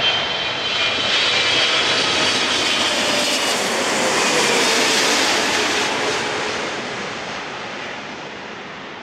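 Boeing 777-300ER's twin GE90 turbofans on landing approach, passing low overhead. The jet noise swells to its loudest about four to five seconds in, with a whine that slides down in pitch as the airliner passes, then fades as it moves away.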